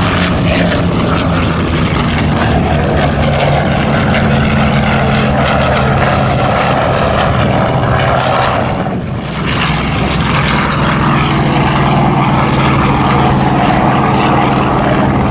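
Vought F4U Corsair's Pratt & Whitney R-2800 radial engine and propeller at power on a low flying pass: a loud, steady drone that dips briefly about nine seconds in.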